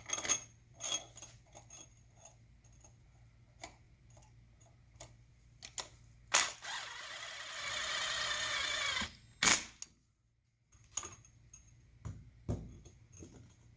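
Scattered metallic clicks, clinks and knocks of bolts and hand tools being handled while an engine is assembled. Midway comes a steady rushing hiss lasting about two and a half seconds, ended by a sharp knock.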